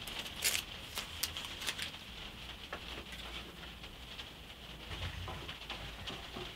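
Quiet workbench handling sounds: a few short sharp clicks and rustles in the first two seconds as tape is handled and a wooden piece is set down on an MDF router table, then sparser small knocks as a screwdriver is turned in the tabletop near the end.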